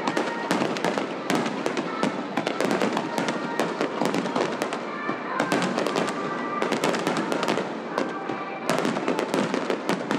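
Fireworks finale: a rapid, dense barrage of bangs and crackles from many shells bursting at once, thinning briefly twice before picking up again.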